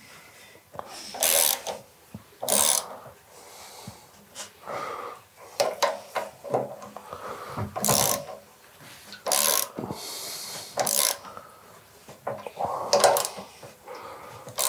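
Hand tools and metal parts being worked on a moped's front fork as screws are turned in: a string of irregular short scrapes, clicks and rattles.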